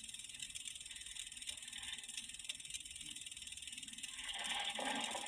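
Steady hiss of an old film soundtrack, with a brief louder sound about four seconds in.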